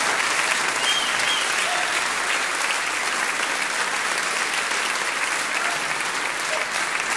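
A crowd applauding at a steady, even level.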